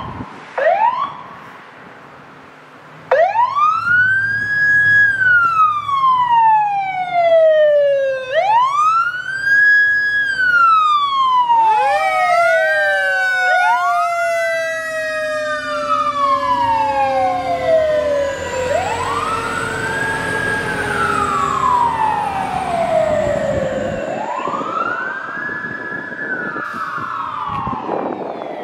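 Fire engine's siren on an emergency response: two short quick yelps, then a steady wail rising and falling slowly, each cycle about five seconds, with a second siren wail overlapping from about twelve seconds in. The truck's engine runs low underneath.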